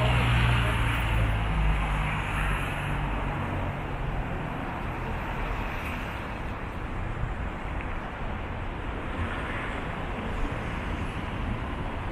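Steady city road traffic, with a low engine hum that fades out over the first few seconds.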